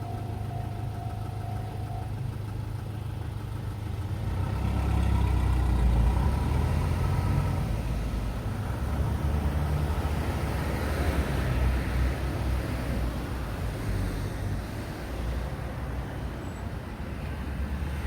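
Road traffic passing through the crossroads: car engines and tyres rumble past, swelling and fading twice.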